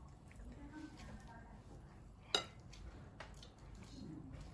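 Cutlery clinking against a dish during a meal: one sharp clink about two and a half seconds in and a lighter tap a moment later.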